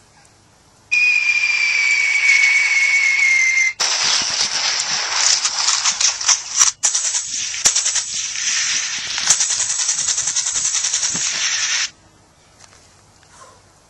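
Mouth-made sound effect: a hissing whistle that glides slightly down in pitch for about three seconds, then about eight seconds of dense crackling hiss that cuts off suddenly.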